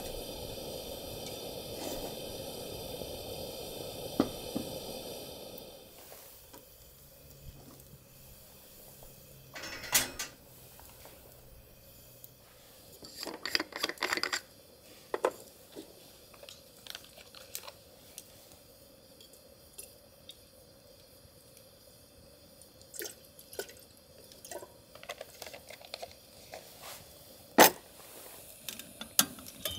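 Small camp-kitchen sounds: a steady hiss for the first six seconds, then scattered clinks and knocks of cookware, with a quick run of grinding clicks from a hand grinder about halfway through and a sharp clank near the end.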